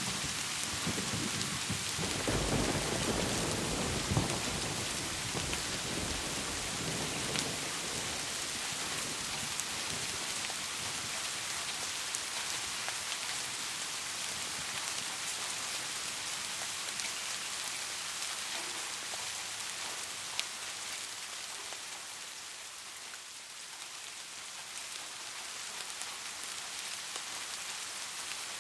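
Steady rain falling. A low rumble of thunder fills the first several seconds and dies away.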